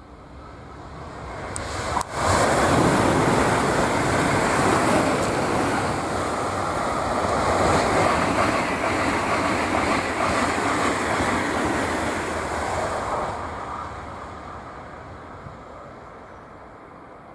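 Frecciarossa 1000 high-speed electric train passing at speed. A rising rush as it approaches, a sudden blast as the nose goes by about two seconds in, then a sustained loud rush of air and wheels that fades from about thirteen seconds in as it moves away.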